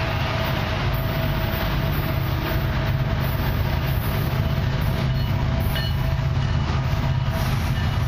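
Diesel locomotives leading a CN freight train, approaching with a steady rumble.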